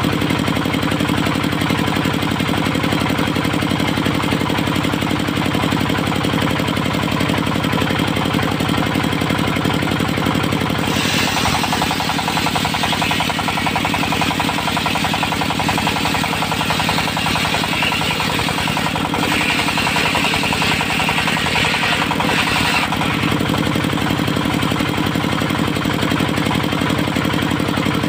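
Engine-driven portable circular sawmill running steadily; from about a third of the way in until near the end, a higher rasping sound joins as the blade cuts through teak, the engine slightly loaded, then it drops back to free running.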